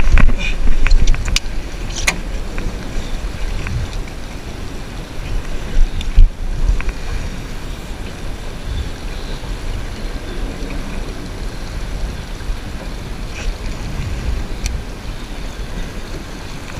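Steady low rumble of wind and water around a small fishing boat at sea. A few sharp clicks come in the first two seconds, and a knock about six seconds in.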